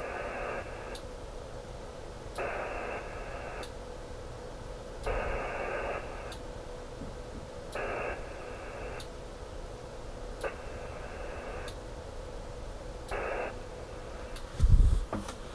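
VARA HF digital-modem data bursts from an HF transceiver's speaker during a Winlink connection attempt: rasping blocks of tones, each half a second to a second long, repeating every two to three seconds over a faint steady hiss. A short low thump near the end.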